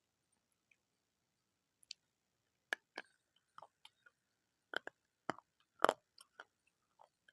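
Close-miked crunching bites and chewing of hard, brittle food: sharp separate cracks, few at first, then several a second from about halfway, loudest near the end.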